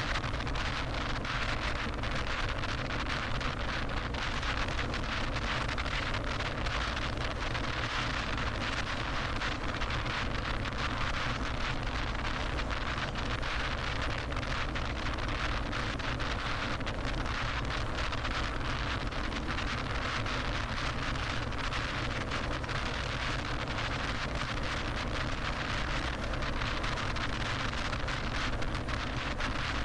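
Steady tyre and wind noise from a car cruising on a freeway, with wind rushing over the microphone.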